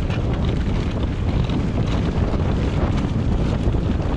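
Wind rushing over the camera microphone as a mountain bike descends at speed, with tyre noise on loose dirt and rocks and scattered clicks and knocks from the bike rattling over the rough track.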